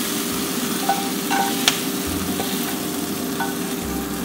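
Olive oil and cherry tomatoes sizzling with a steady hiss in a hot skillet as metal tongs lift the tomatoes out, with a few light clicks of the tongs against the pan.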